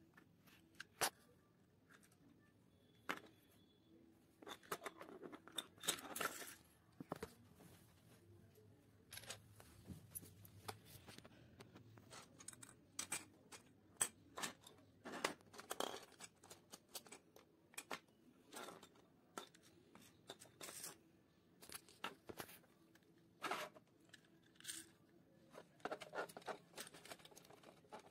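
Small plastic parts of a toy coin bank being handled: the gearbox casing, nylon gears and outer housing give scattered light clicks and taps, with a few short scraping rustles between them.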